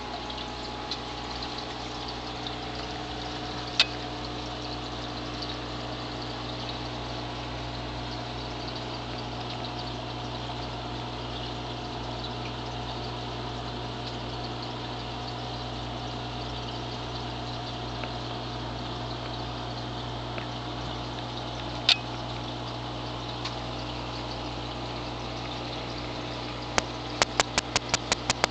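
Aquarium bubble curtain and pump running steadily: bubbling water over a constant low hum. There is a single sharp click twice, and a quick run of clicks near the end.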